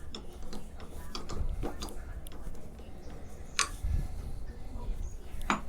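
Door-knob mounting screws being tightened by hand with a screwdriver: irregular small metallic clicks and ticks from the screwdriver and knob hardware, with a couple of sharper clicks, one a little past halfway and one near the end.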